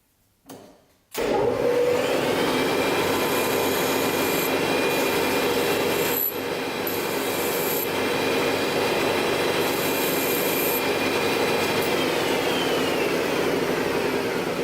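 Metalworking machine tool cutting steel bar stock: a loud, steady rasping cut with a motor whine over it. It starts suddenly about a second in and runs on without a break.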